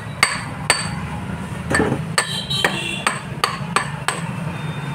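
Metal pipe knocked repeatedly into the stainless-steel casing of a submersible pump motor to drive out its inner parts: about a dozen sharp metallic knocks at an uneven pace, each with a brief ring, over a steady low hum.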